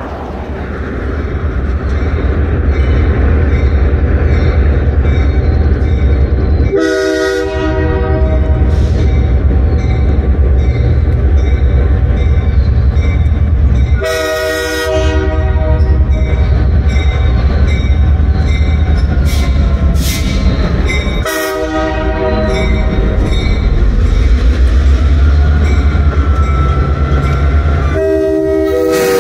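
Diesel locomotive approaching, its engine rumble growing louder over the first few seconds. It sounds its horn in four blasts about seven seconds apart for a grade crossing, the last still going at the end.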